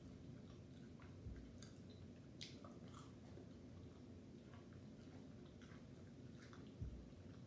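Close-miked chewing and wet mouth clicks from eating sausage and loaded cheese fries, soft and irregular, with two low thumps about a second in and near the end.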